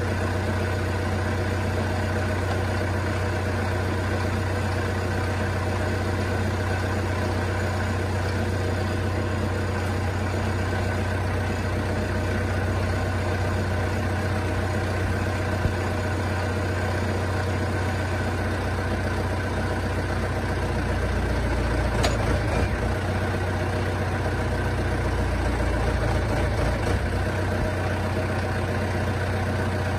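Farm yard loader's engine idling steadily, then running heavier and deeper from about 19 to 27 seconds in as the loader's hydraulics take up the load of the lifted pallet truck. There is one sharp clank about 22 seconds in.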